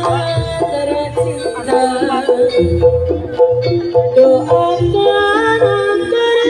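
Loud Bantengan dance music over a sound system: a high melody stepping between held notes over repeated low drum beats.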